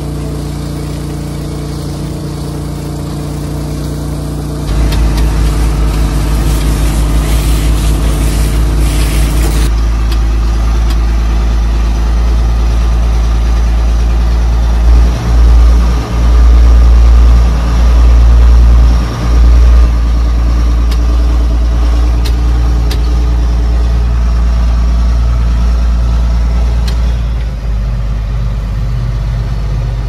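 Engines running steadily, in joined clips: first the newly fitted motor of a water pump running and spraying water, with a louder low rumble coming in about five seconds in. From about ten seconds in, a John Deere farm machine's engine heard from inside its cab while driving, with a few brief dips in the sound.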